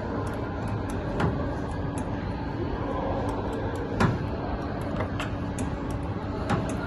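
Core cutting machine running with a steady hum, with scattered light clicks and knocks and one sharper knock about four seconds in.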